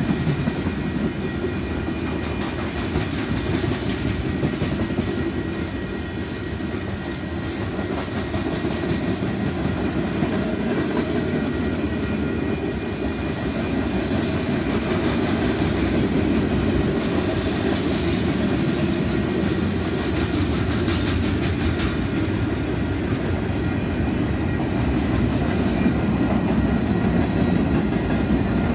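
Freight cars of a passing CP freight train rolling by, steel wheels running on the rails in a continuous, steady noise.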